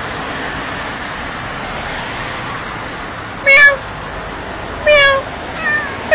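Steady road and wind noise of a moving car, with a cat on its roof meowing loudly twice, about three and a half and five seconds in, and a fainter meow shortly after.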